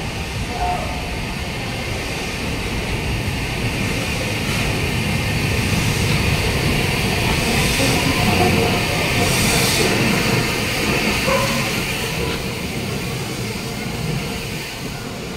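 Southern Railway Schools class 4-4-0 steam locomotive No. 926 'Repton' running along the station platform with its coaches: a steady train rumble, with a short hiss about nine to ten seconds in.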